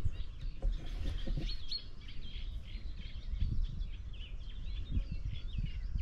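Songbirds singing, a quick busy run of high chirps and warbled notes that goes on without a break, over a low uneven rumble.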